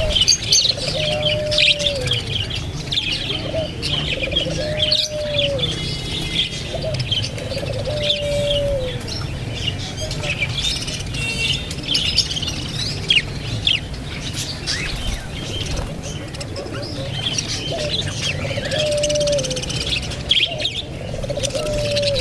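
Many birds chirping busily in quick, high, overlapping calls, while a lower call that drops in pitch at its end repeats every few seconds. A steady low hum runs underneath.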